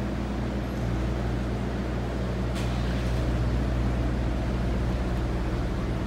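Parked ice cream truck's engine idling: a steady low hum, with a single faint click about two and a half seconds in.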